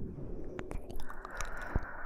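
Close-miked breathing, soft and airy: one breath trails off at the start and the next begins about a second in, with a few small mouth clicks in the gap.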